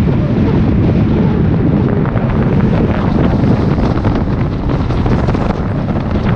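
Wind rushing and buffeting the microphone of a moving car, over the steady rumble of the car on the road.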